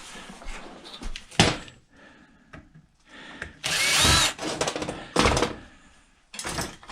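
A power drill runs for about a second while the sheet-metal casing of an old microwave is taken apart. Sharp knocks and clatter of metal parts come before and after it.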